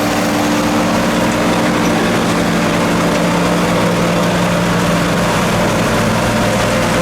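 John Deere 4440 tractor's turbocharged six-cylinder diesel running steadily under load while powering a Sperry New Holland 782 forage harvester chopping corn, the engine drone mixed with the chopper's steady whir.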